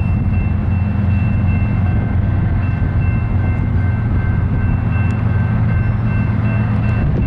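BNSF diesel locomotives hauling a ballast train, their engines running with a steady low drone and a faint high whine above it.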